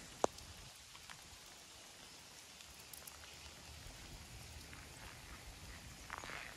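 Scattered raindrops ticking close to the microphone over a faint outdoor hush. The loudest is one sharp tick just after the start.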